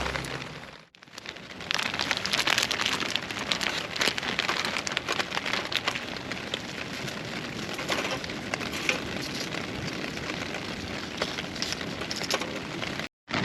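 Wood fire in a small solo fire stand, crackling steadily with frequent sharp pops, starting a second or two in.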